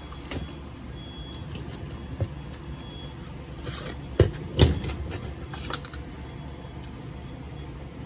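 Smoke alarm box and packing being handled: light rustles and small clicks, with two sharp knocks about halfway through, over a steady low hum.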